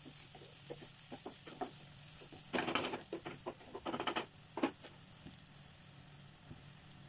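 Chopped onions and green chillies sizzling in oil in a nonstick pan, with a wooden spatula scraping and stirring them in short strokes. The stirring stops about two-thirds in, leaving only the steady sizzle.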